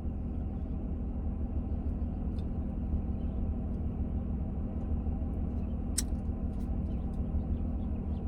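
Low, steady rumble of a car running, heard from inside the cabin, with one sharp click about six seconds in.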